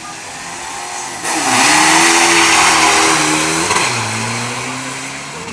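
Diesel pickup truck launching hard off a drag-strip start line: the engine revs climb and hold at full throttle, drop at a gearshift about four seconds in, then fade as the truck runs away down the strip.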